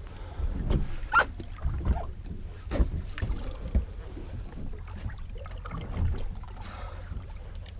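Wind buffeting the microphone and water slapping against a small boat's hull, with scattered knocks and splashes.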